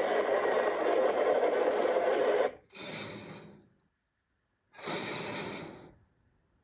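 Runaway locomotive 777's diesel engine running loudly and steadily, cutting off about two and a half seconds in. It is followed by two separate scraping, hissing rail sounds, each about a second long and each fading out.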